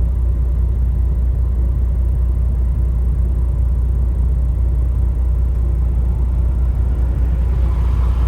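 Truck diesel engine running at a steady idle, heard as an even low hum from inside the cab.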